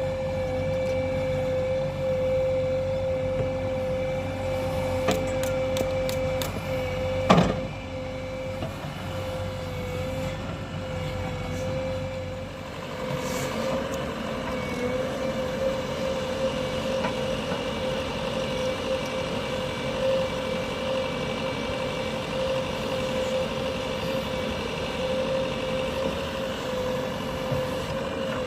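JCB 3DX backhoe loader's diesel engine running at work, with a steady high whine throughout and a single loud knock about seven seconds in. The engine note changes about halfway through.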